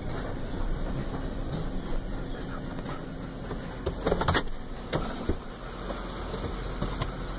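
Car cabin noise while driving slowly: a steady low rumble of engine and tyres, with a few short sharp clicks about four seconds in and again about a second later.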